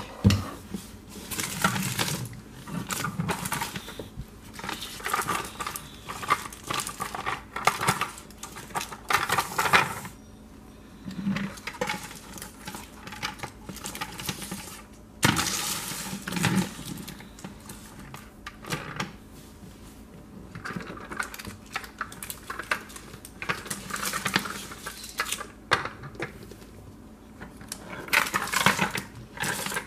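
Plastic toy trucks being handled, pushed and set down among a pile of wrapped candy sticks on a wooden floor: irregular clattering and rustling in bursts, with short lulls in between.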